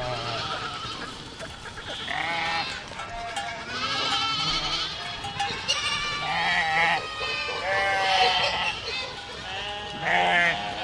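Several goats bleating over and over, their wavering calls overlapping one another.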